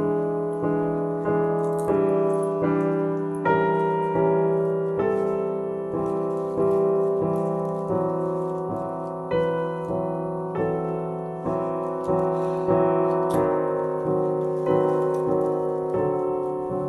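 Slow piano music: notes and chords struck a little more than once a second, each ringing out and fading before the next.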